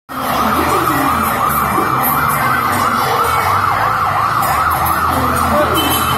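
Electronic siren of a child-sized fire truck sounding a rapid up-and-down yelp, about three sweeps a second.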